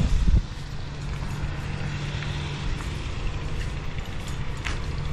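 A boat engine running at a steady pitch, with wind on the microphone. There is a brief low thump right at the start.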